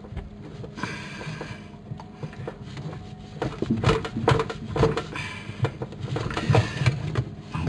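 A tool cutting into an old thick-walled, double-walled water pipe: irregular metal scraping and clicking that grows louder and busier about halfway through, as the tool works toward breaking through the pipe wall.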